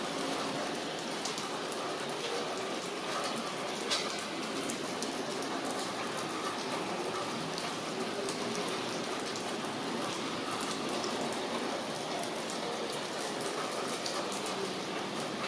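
Rain falling steadily, a dense patter of many separate drops ticking on nearby surfaces, with one sharper drop strike about four seconds in.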